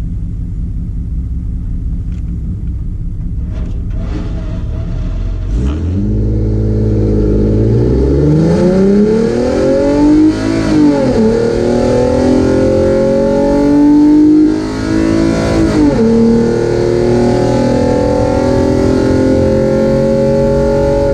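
Drag car's engine with long-tube headers idling on the line, then launched at full throttle about six seconds in and revving up through the gears. The pitch climbs and drops back at each upshift, about 11 and 16 seconds in, then holds high and loud down the track.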